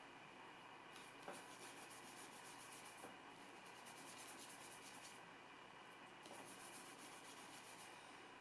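Faint scrubbing of a long-haired flat hog-bristle brush mixing oil paint on a palette, in three short bouts.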